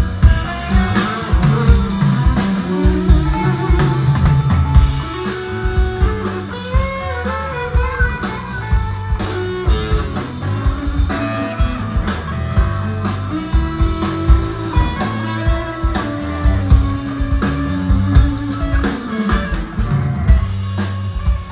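Live psychedelic rock band playing an instrumental stretch with no vocals. Electric guitar lead lines bend and slide over bass and a steadily hit drum kit.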